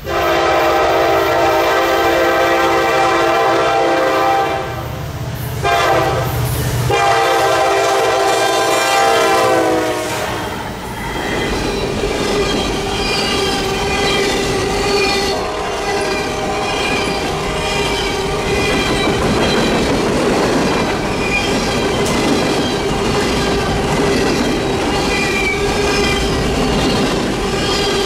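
Nathan K5LLA five-chime air horn on a Norfolk Southern SD70ACE diesel locomotive sounding in long blasts for about the first ten seconds as it approaches and passes. Then empty steel coal hopper cars roll by with steady wheel-on-rail clatter, a constant squeal and intermittent higher wheel squeals.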